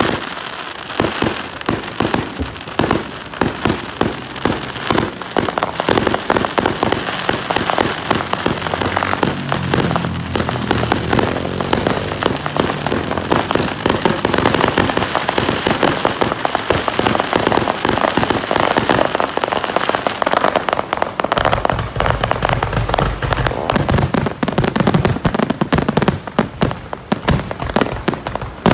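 Aerial fireworks going off in quick succession: a steady stream of bangs and crackles, with deeper, heavier booms coming in about two-thirds of the way through as the bursts grow denser.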